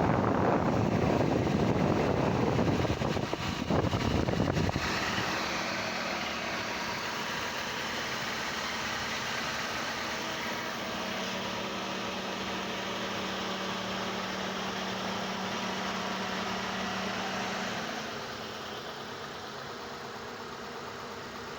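Mitsubishi Galant engine idling steadily. A louder rushing noise covers the first five seconds, then stops suddenly, leaving the even idle, which drops a little in level near the end.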